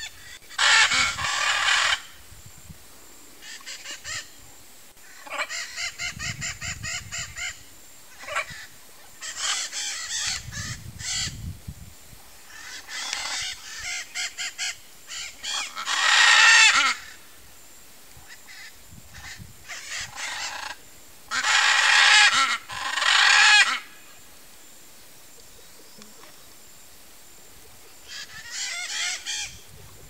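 Blue-and-yellow macaws giving loud, harsh, raspy squawks in repeated bouts with short pauses between them. The loudest calls come a little past the middle and again about two-thirds of the way through, and there is a quieter stretch near the end.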